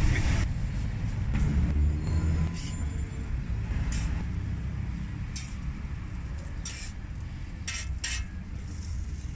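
Metal spatula scraping and clinking on a steel flat-top griddle as meat is pushed and scooped onto tortillas, a sharp clink every second or so at irregular intervals, over a low steady rumble of street traffic.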